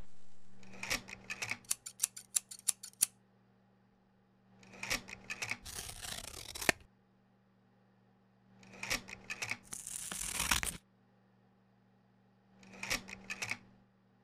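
Four short bursts of scissors snipping and paper rustling. The first burst is a quick run of sharp clicks. A low steady electrical hum runs underneath.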